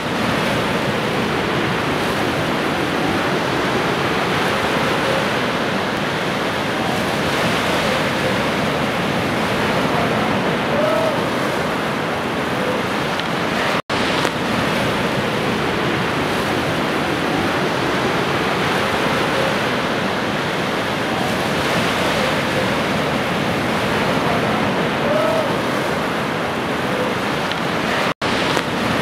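Ocean surf: waves breaking and washing up on a beach as a steady rushing, cutting out for an instant twice.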